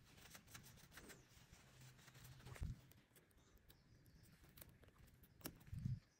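Faint small clicks and scrapes of fine metal tweezers prying a key off a phone keypad, with two soft thumps of hands bumping the felt-covered bench.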